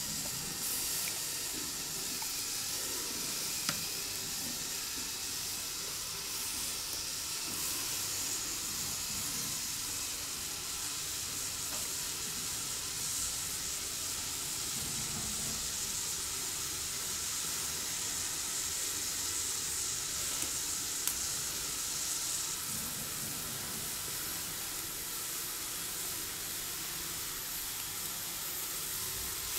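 Chestnuts roasting on a wire grill over glowing charcoal in a hibachi: a steady sizzling hiss with a few faint ticks.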